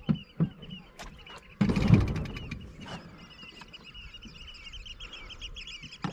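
A boat's outboard motor is pull-started once and turns over for about a second without catching. High bird chirping runs throughout.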